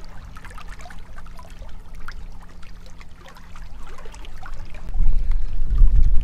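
Water lapping and trickling against a rocky shoreline, with faint scattered clicks. About five seconds in, a loud low rumble of wind buffeting the microphone takes over.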